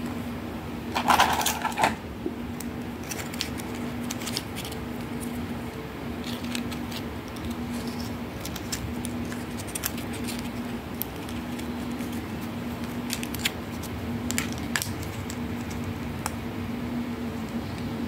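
Plastic toy tea set pieces being handled: a brief clatter about a second in, then scattered light clicks of the plastic spoons knocking together, over a steady low hum.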